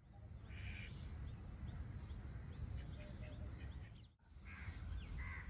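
A crow caws a few times, short harsh calls near the start and twice near the end, while small birds chirp, over a steady low rumble.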